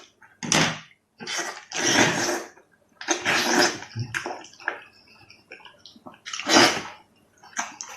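A person eating with the microphone close: a series of loud slurps and sucking bites, each about half a second long, coming unevenly.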